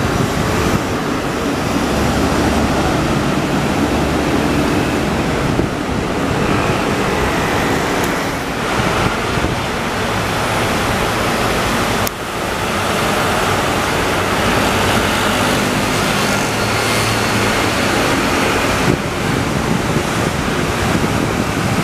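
Steady roadside traffic noise, engines of passing cars, trucks and scooters, with wind rushing on the microphone.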